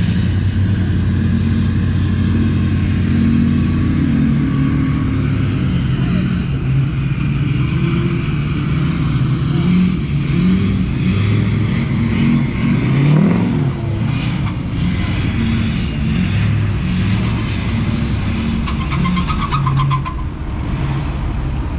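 Pickup truck engines running and revving under load, the engine note rising and falling and peaking about halfway through, as a pickup stuck in soft beach sand is pulled out with a tow strap.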